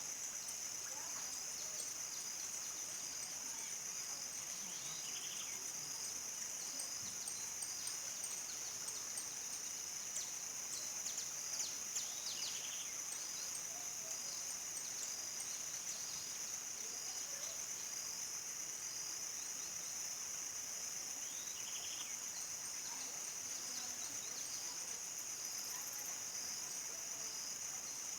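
Field crickets chirping together in a steady, high-pitched evening chorus, with a few brief chirps from other animals around the middle.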